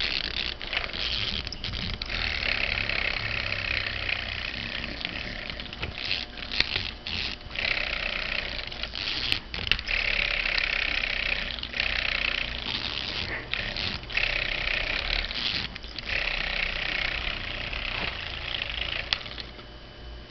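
A pull-string vibrating plush airplane toy buzzing as its small motor runs, set going by a dog pulling the cord. The buzz breaks off briefly a few times and fades near the end.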